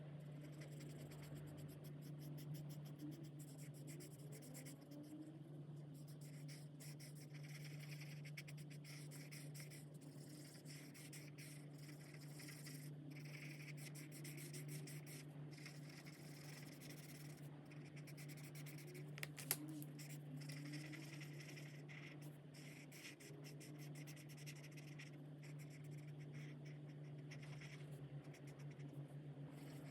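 Faint scratching of alcohol marker tips stroked quickly back and forth across coloring-book paper, over a steady low hum. There is one sharp click about nineteen seconds in.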